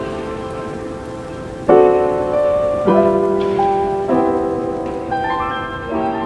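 Background music: sustained chords that change every second or so, with a few notes stepping upward near the end.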